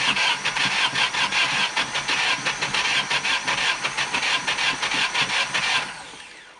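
Starter motor cranking the cold engine of a GAZ-3110 Volga in fast, even pulses without it firing, then stopping near the end: the engine is not getting enough petrol.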